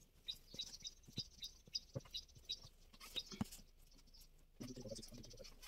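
Faint, high chirping of a small bird, short notes at about three a second, over light taps and knocks of hands handling dough on a wooden table.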